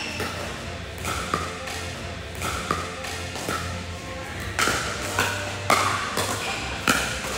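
Pickleball paddles striking a hard plastic pickleball in a fast doubles rally at the net: a quick series of sharp pops, about one every half second to a second, over background music.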